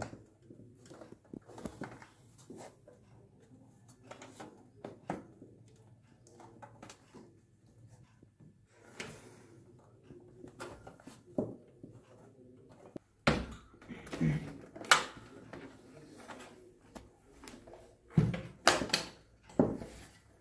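Sheet-metal quartz heater casing and its wire front grille being handled and fitted together: scattered light clicks and rattles, with louder metal knocks about two-thirds of the way through and again near the end.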